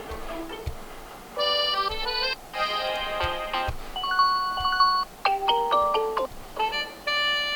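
Huawei Y11i default ringtones playing: short electronic melodies, each about a second long, cut in one after another.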